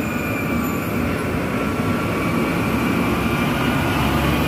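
Diesel engine of a UD Quester GWE 370 tractor unit running under load as it hauls a heavy crane section past at close range, slowly getting louder.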